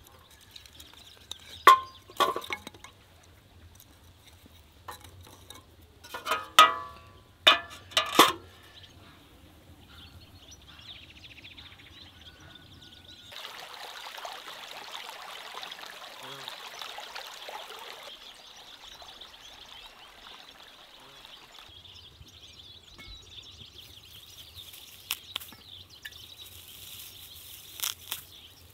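Kindling being fed into a wood-fired samovar: wooden sticks knock and clink against the metal chimney several times in the first eight seconds. Later a small stream runs steadily for about five seconds.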